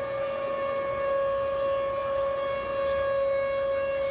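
Outdoor civil-defense warning siren sounding a steady tone, set off for a severe thunderstorm warning.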